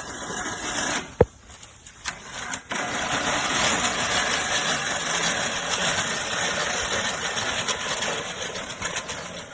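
Push reel mower running through grass, a steady rushing whir that starts after a sharp click about a second in, builds up about three seconds in, and fades near the end.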